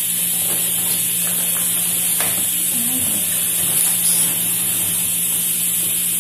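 Steady, loud hiss of steam from a lidded pot cooking on a lit gas burner, with a few faint taps and rustles of packaging in the first couple of seconds.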